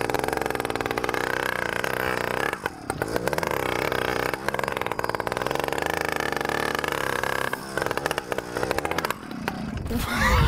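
100cc petrol bicycle engine running loud on a makeshift, cut-down exhaust pipe, revving up and down as the throttle is worked. The revs drop briefly several times, about three, four and a half, seven and a half, and nine seconds in, and pick up again.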